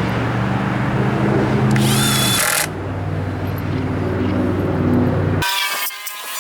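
Gas chainsaw engine running steadily, easing off a little near the middle, then shut off abruptly about five and a half seconds in.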